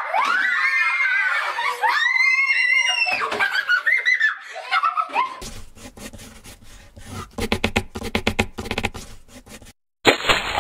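Children shrieking and laughing, high-pitched, for about five seconds. Then a rapidly flickering, crackling sound effect starts as the logo animation begins, and it ends in a short hiss that cuts off sharply.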